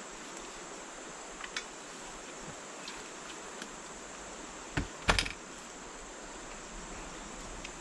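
Steady high-pitched insect drone in the forest, with a few light clicks and a couple of sharp knocks about five seconds in.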